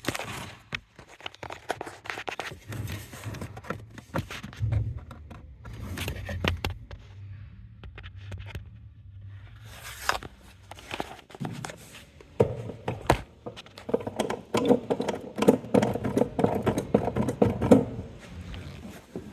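Irregular clicks, knocks and scraping of hands and tools at work in a car's footwell, at the brake pedal and booster linkage under the dashboard.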